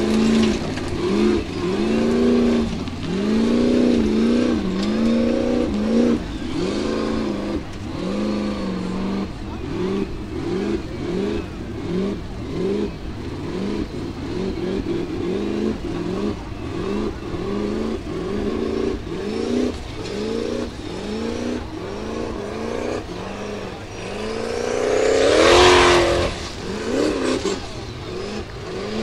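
Formula offroad buggy's engine revved hard over and over as it climbs a steep dirt hill, its pitch rising and falling about once or twice a second. About 25 seconds in, a longer, louder rev climbs to the loudest point.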